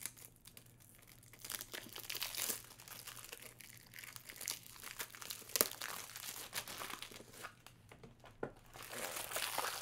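Plastic wrapping on a pack of card top loaders crinkling and tearing as it is pulled open by hand, in irregular crackles with a sharp click about five and a half seconds in.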